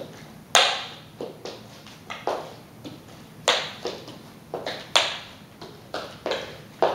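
Hands and sneakers tapping and slapping on a hard wood-look floor as a person walks around in a plank position, an irregular series of separate impacts about every half second to second.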